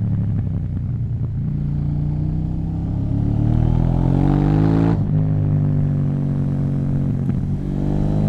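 KTM 790 Duke's parallel-twin engine through an Akrapovič exhaust, its revs climbing for a few seconds, then dropping sharply about five seconds in. The revs then hold steady and begin climbing again near the end.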